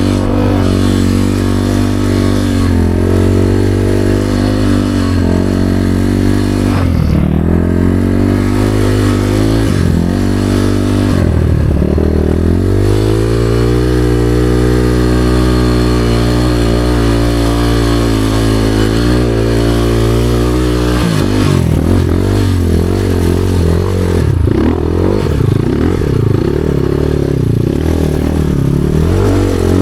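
Motorcycle engine running under way, its pitch rising and falling with the throttle every second or two. It holds a nearly steady pitch for several seconds in the middle, then turns uneven with quick throttle changes near the end.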